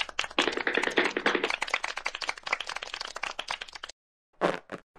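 Applause: many hands clapping in a dense patter that stops suddenly about four seconds in, followed by two single claps.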